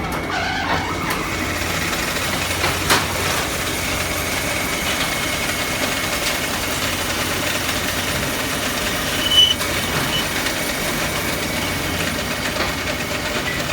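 Steady running noise of workshop machinery, with a sharp click about three seconds in and a brief high squeak about nine seconds in.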